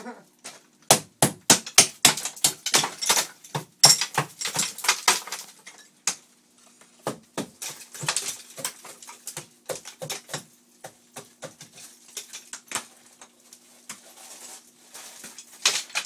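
Sharp knocks and clatter of broken ceramic tile and demolition debris, thick over the first few seconds and then sparser, over a faint steady hum.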